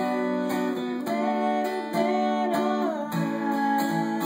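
Acoustic guitar strummed steadily, accompanying a pop love song between sung lines.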